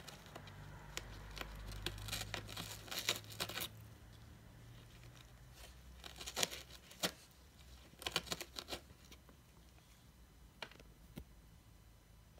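A cat tearing at a corrugated cardboard scratcher bed: crackling rips and crunches of cardboard in several short bursts, with a couple of lone snaps near the end.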